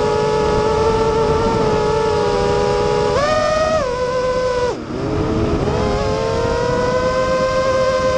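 Motors and propellers of a radio-controlled aircraft, heard from its onboard camera: a steady whine that jumps up in pitch about three seconds in, dips sharply in pitch and loudness a moment later as the throttle comes off, then rises gradually again.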